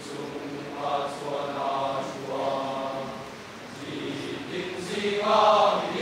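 Large mixed choir of female and male voices singing, with held notes that swell louder about five seconds in.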